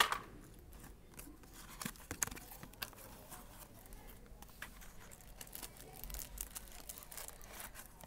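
Cardboard box being handled and opened: light rustling and scraping with scattered small clicks and taps as a multimeter is taken out, a sharper click right at the start.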